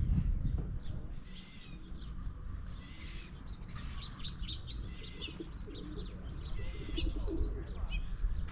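Small songbirds chirping at a bird feeder: many short, overlapping chirps throughout, over a steady low rumble.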